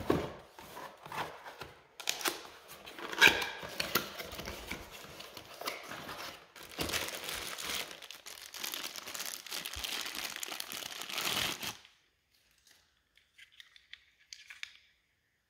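Packaging being torn and crinkled as it is opened, with rustling and sharp clicks. It stops about twelve seconds in, leaving a few faint rustles.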